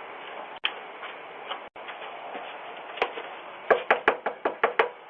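Knocking on a door heard through a doorbell camera's microphone over its steady hiss: a single knock about three seconds in, then a quick run of about nine knocks.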